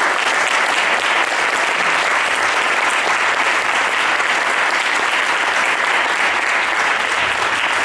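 Audience applauding, a dense, steady clapping that holds at an even level throughout.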